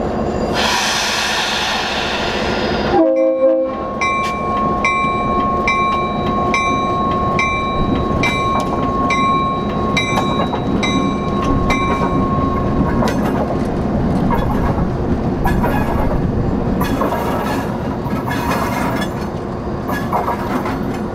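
Diesel locomotive SFS 07 passing: a burst of hiss in the first few seconds, a short horn blast about three seconds in, then a bell ringing about one and a half times a second for some nine seconds over the engine and rail noise.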